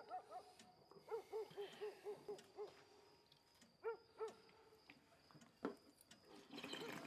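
A dog whimpering: a run of short high whines, about four a second, then two more a little later and more near the end, with a faint clink of cutlery on a plate.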